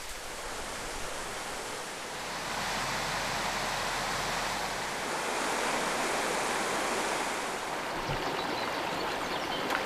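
Mountain stream running over rocks: a steady rush of water that grows a little louder about two seconds in.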